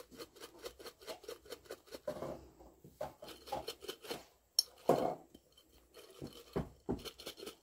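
Dried malagueta chillies and olives rattling and clicking against the inside of a glass jar as it is shaken and turned, with a few louder knocks in the second half.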